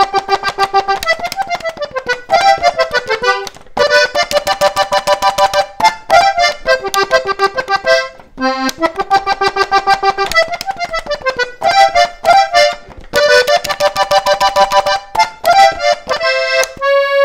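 Hohner three-row diatonic button accordion tuned G-C-F playing a polka melody in quick single notes over a steady bass-and-chord rhythm. The phrases are broken by a few brief pauses.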